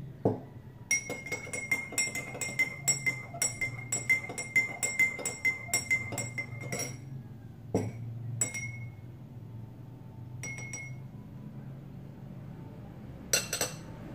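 Metal teaspoon stirring in a drinking glass of juice, clinking rapidly against the glass with a ringing tone for about six seconds. A few single clinks follow, then a short clatter near the end.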